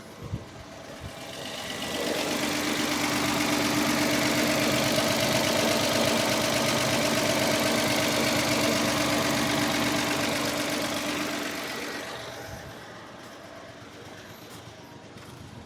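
Mitsubishi Mirage's 1.2-litre three-cylinder engine running at a raised idle just after starting, its RPM a bit high. The sound grows louder about two seconds in, holds steady, and fades back down near the end.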